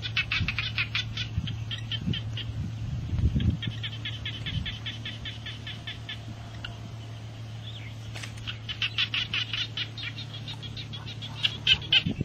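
Several bursts of rapid, high chirping calls from small animals, about eight to ten pulses a second, with a quieter stretch in the middle. A steady low hum runs underneath.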